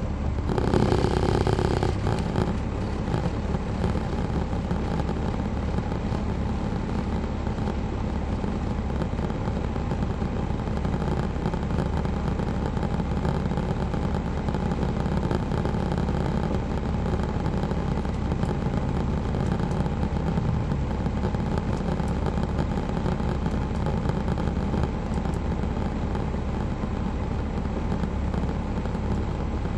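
A Caterpillar C13 ACERT diesel engine in a 2007 MCI D4500CL coach runs steadily, with a low drone heard from inside the passenger cabin. A brief louder rush of noise comes in the first couple of seconds.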